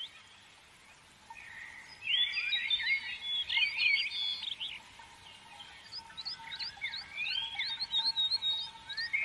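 Songbirds singing: after a quiet first second, a couple of seconds of varied warbling chirps, then a run of quick repeated chirps, over a faint steady tone.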